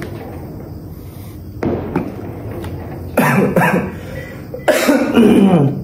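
A young man coughing in three bouts, the last the longest and falling in pitch, set off by the strong smell of the spicy noodles he is eating.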